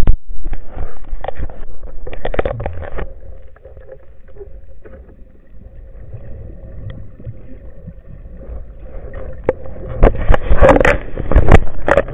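Underwater camera audio: water rushing and knocking against the camera housing as the diver moves, loud with sharp clicks for the first three seconds and again after about ten seconds, and a quieter stretch in between with a faint steady hum.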